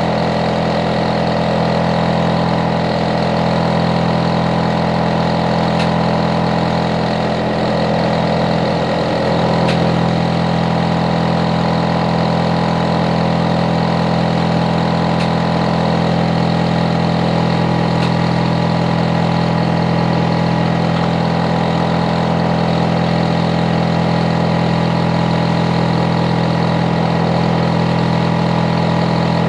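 Hitachi air-conditioner outdoor unit running with a loud, steady hum made of several low tones; about ten seconds in, the higher part of the hum changes, then it runs on evenly.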